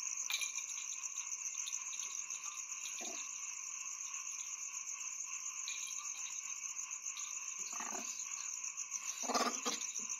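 Steady chorus of night insects: shrill trilling at several pitches, pulsing continuously. A few soft knocks come through it, the loudest near the end, as a pet monkey clambers on metal chairs and a wooden door frame.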